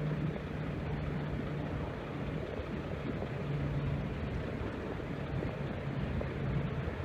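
A steady engine drone over a rushing noise, with a low hum that fades and returns a few times.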